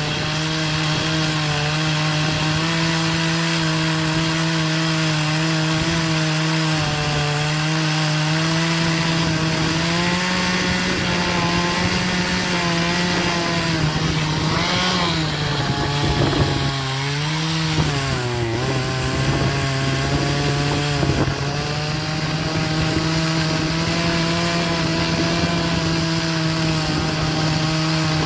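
Troy-Bilt TB4218 42cc two-stroke chainsaw running at high revs while cutting into an oak stump. About halfway through, the engine pitch sags and wavers as the saw loads up in the cut, then settles back to a steady note.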